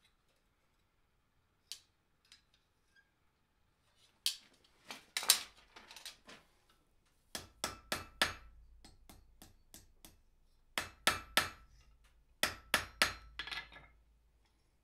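Hand hammer striking a hot iron hook on the anvil: groups of sharp, ringing blows with lighter taps between them, starting about four seconds in.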